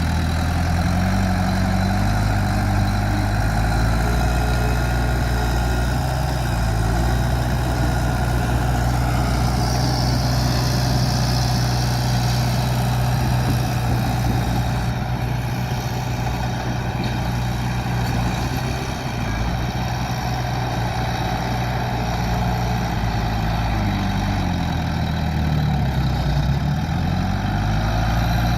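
Bulldozer's diesel engine running steadily under load, its pitch dipping and rising a few times. A brief high hiss comes about ten seconds in.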